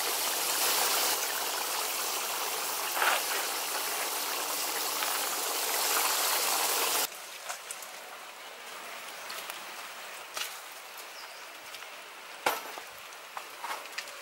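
Leg of lamb sizzling in hot oil in a pan, a loud steady hiss that cuts off suddenly about halfway. After that, a quieter background with a few scattered sharp clicks and rustles.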